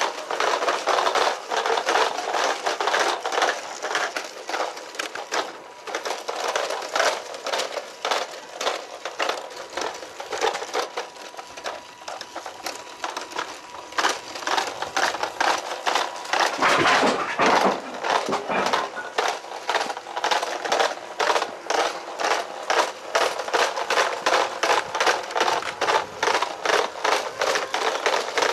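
Radio-controlled Hymer motorhome model driving over stone paving. Its small wheels and drivetrain make a gritty crackling with a dense run of short clicks, busiest about two thirds of the way through.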